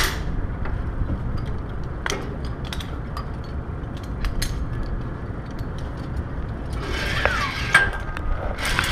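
Wind buffeting a body-worn camera's microphone in a steady deep rumble, with scattered sharp clicks of harness and rigging hardware. About seven seconds in and again at the end a louder rush of noise rises.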